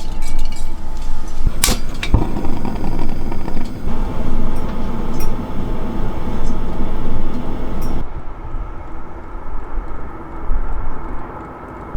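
Strong gusty wind buffeting the microphone: a heavy, unsteady rumble that swells and fades, with a couple of sharp clicks or knocks about two seconds in.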